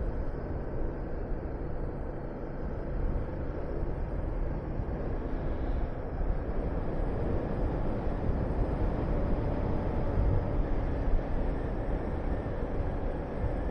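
Honda VTR250's V-twin engine running under way on the road, mixed with wind rushing past the rider.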